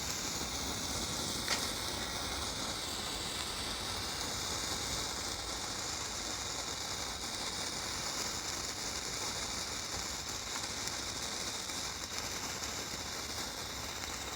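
Steady high-pitched hissing, with a single short click about one and a half seconds in.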